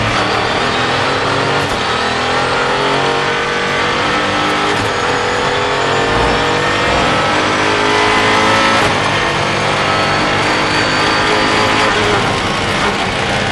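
Mosler Super GT race car's V8 engine at full throttle, heard from on board, rising in pitch as the car accelerates hard, with a brief break about nine seconds in that fits a gear change.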